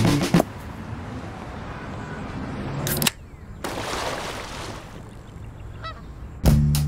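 A rushing noise rises for about three seconds and cuts off suddenly. Then a body splashes into lake water and the water settles, with a short goose-like honk near the end.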